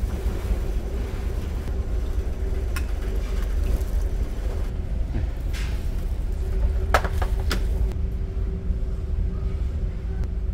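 Steady low drone of the ferry's engines heard inside the ship, with a steady hum over it. A few light clinks of tableware sound about three seconds in and again near the middle.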